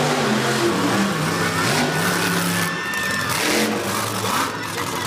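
Monster truck engine revving as the truck drives and turns on the dirt track, its note rising and falling in pitch several times.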